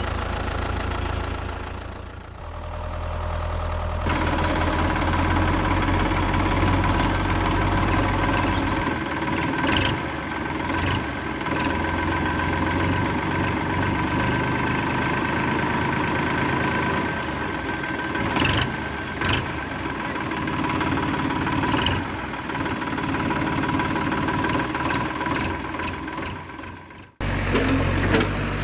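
A mini backhoe's small motor running steadily with a whining hum, cutting off abruptly and resuming near the end.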